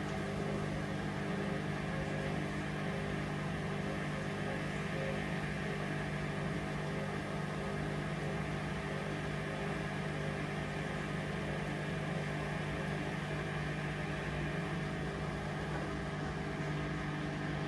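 Hoover Vision Dynamic washing machine spinning at a steady speed in its final spin, a constant motor hum.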